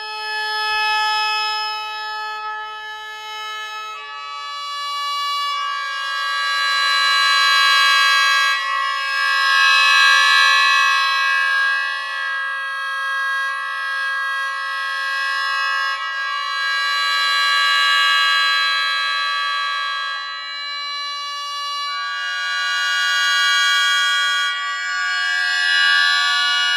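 Sho, the Japanese bamboo mouth organ with metal free reeds, sounding held many-note chords. The chord shifts about four and five and a half seconds in and again around twenty and twenty-two seconds in, swelling and easing in loudness as it goes.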